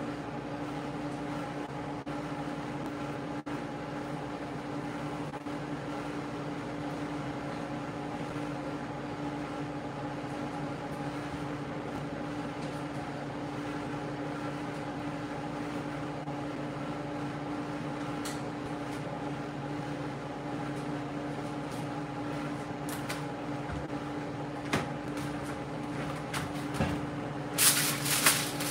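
A steady mechanical hum with a low tone and fainter higher tones. About a second before the end, aluminium foil crinkles loudly as it is pulled back off a tray.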